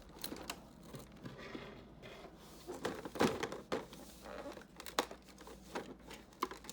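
Packaging crinkling and tearing as a toy advent calendar compartment is opened and the small toy inside is unwrapped, with scattered light clicks and taps.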